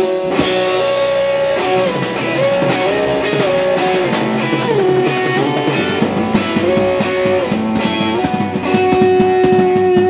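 Live blues-rock band: an electric guitar plays a lead line of long, sliding, bent notes over electric bass and a drum kit. Near the end it holds one note with a wavering vibrato.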